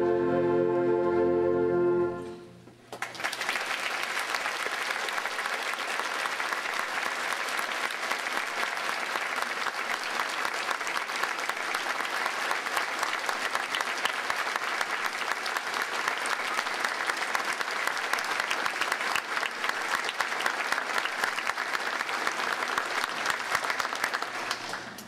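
A concert band holds its final chord, which cuts off about two seconds in. Audience applause follows and fades out near the end.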